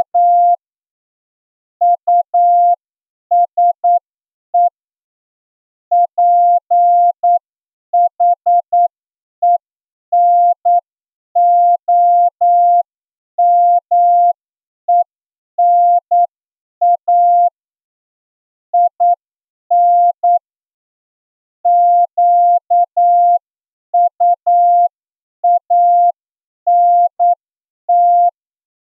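Morse code sent as a single steady mid-pitched beep, keyed on and off in short dots and longer dashes with gaps between letters and words: a practice passage for an amateur radio Morse receiving test. Each tone starts and stops with a faint click.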